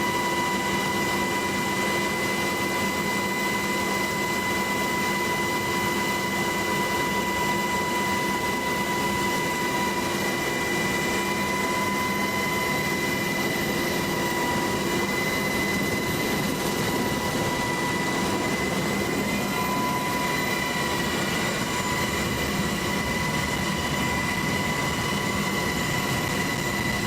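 Helicopter running steadily, heard from inside the cabin: loud, even engine and rotor noise with a high, steady whine.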